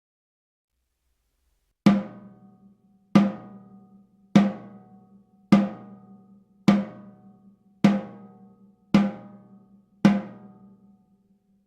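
Tama Artwood solid maple 14x8" snare drum struck with single hits, eight strokes a little over a second apart, each left to ring out with a deep tone. The first stroke comes about two seconds in.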